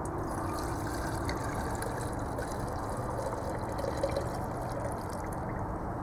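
Kerosene pouring from the spout of a plastic jerry can into a glass mason jar, a steady trickle filling the jar.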